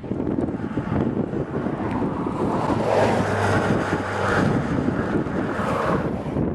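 Wind buffeting the camera's microphone: a continuous gusty rushing noise that swells a little about three seconds in.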